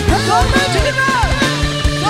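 Live band playing an upbeat Isan luk thung song in an instrumental stretch: a lead melody full of bends and slides over bass and a steady drum beat.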